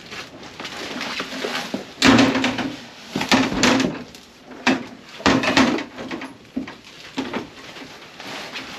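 Cardboard shipping box and its packing being handled: irregular scrapes, rustles and knocks as parts are pulled out, loudest about two, three and a half and five and a half seconds in.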